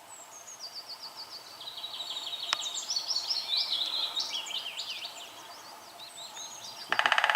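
Small songbirds singing, with many runs of quick, high, downward-slurred notes overlapping. Near the end comes a short, loud burst of woodpecker drumming: rapid knocks on dead wood.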